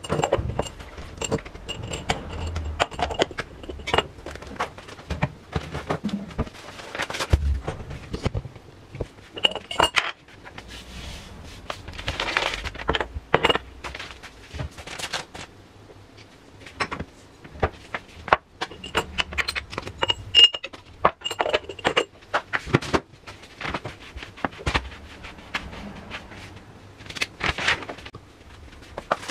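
Crockery and utensils handled on a kitchen counter: irregular clinks and knocks of a cup and spoon set down and moved about on tile and a wooden board, with occasional scrapes.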